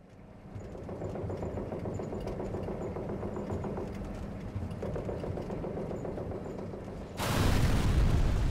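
Vehicle engine running steadily as it drives, fading in at the start. About seven seconds in, a loud explosion blasts and rumbles on.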